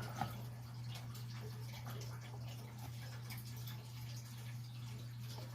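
Steady low hum of a quiet small room, with a few faint small clicks right at the start as the hex key finishes turning the reset screw of a Fire-Lite BG6 pull station.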